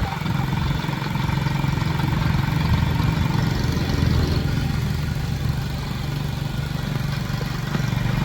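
Motorcycle tuk-tuk engine running with a steady low note.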